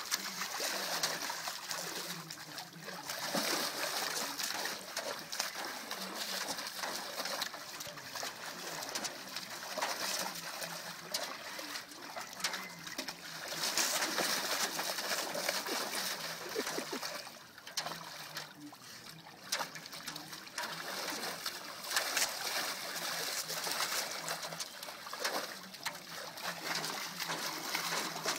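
A Rottweiler pawing at the water in a shallow metal tub, splashing and churning it over and over, with a quieter spell about two-thirds of the way through.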